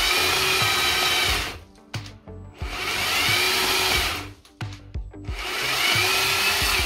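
Cordless battery chainsaw cutting through tree branches in three short runs of about a second and a half each, its motor whine dying away between them. The chain cuts out on its own each time, which the owner puts down to the saw's automatic stop.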